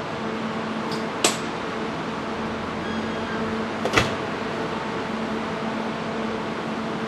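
Steady electrical hum of a Kintetsu 30000 series Vista EX train standing with its equipment running. Two sharp clicks break the hum, one about a second in and a louder one about four seconds in.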